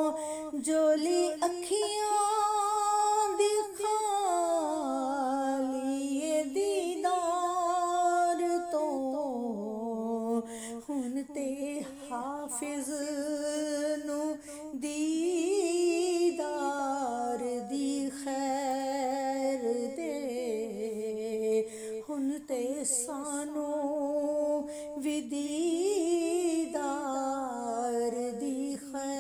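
A woman's solo voice singing a Punjabi naat melody with no accompaniment, in long held notes that waver and slide from pitch to pitch.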